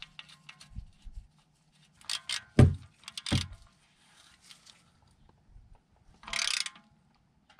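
Small clicks and a few loud metal knocks as a socket wrench is fitted onto the engine oil pan's drain plug, then a short burst of ratcheting about six seconds in as the plug is run back in after the oil drain.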